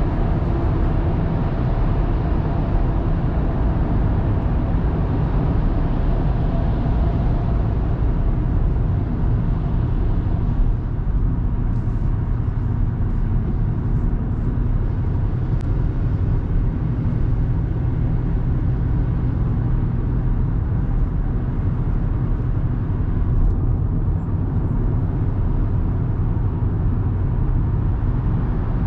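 A 2024 Audi A3 Sportback with the 1.5 TFSI turbocharged four-cylinder petrol engine, driving on the road: a steady low rumble of engine, tyres and wind. The higher hiss softens about ten seconds in.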